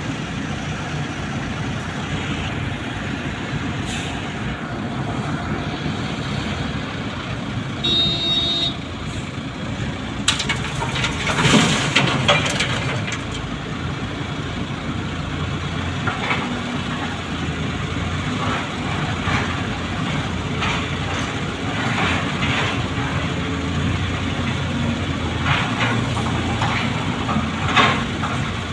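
Volvo wheel loader's diesel engine running steadily while working, with scattered clanks and a louder noisy surge about eleven seconds in. A short beep sounds about eight seconds in.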